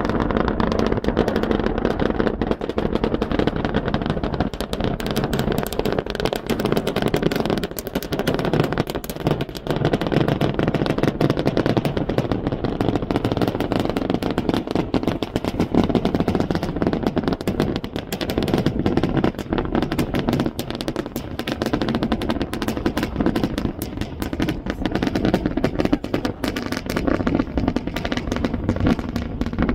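Starship Super Heavy booster's 33 Raptor engines during ascent: a loud, continuous crackling rumble that never lets up.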